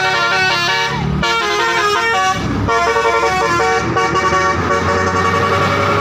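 Bus telolet horn, a Basuri multi-tone musical horn, playing a quick melody of short stepped notes over the low rumble of the bus engine.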